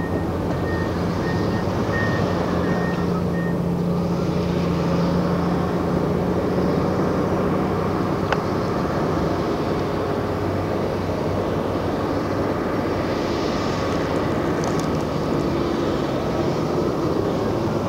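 Diesel engines of heavy quarry earthmoving machines running steadily. A broken high-pitched tone sounds on and off during the first few seconds, and there is a single sharp click about halfway through.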